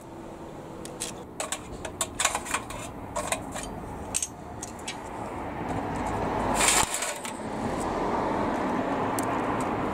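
Small metallic clinks and rattles from a loose bicycle chain and its parts being handled. In the second half, road noise from a passing vehicle rises, with one brief louder burst of noise about two-thirds of the way in.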